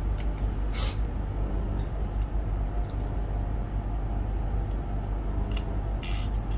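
Steady low hum with a couple of short hissy sounds, one about a second in and one near the end.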